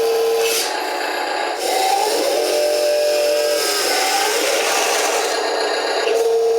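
Wheel loader at work: a steady motor whine whose pitch dips and rises, over a scraping, grinding noise as it works the dirt.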